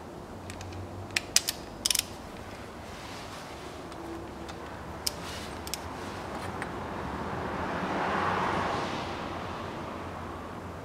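Ratcheting torque wrench on a socket extension: several sharp ratchet and metal clicks in the first two seconds and a few more in the middle as it is worked on a diesel glow plug. A soft rasp swells and fades around eight seconds in.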